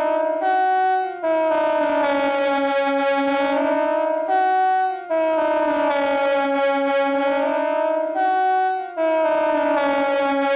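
KTG-10 civil defence siren sounding during a siren test. A long tone sags slowly in pitch and comes back up over about three seconds, then steps up to a short higher note and breaks off briefly. The cycle repeats about every four seconds, three times.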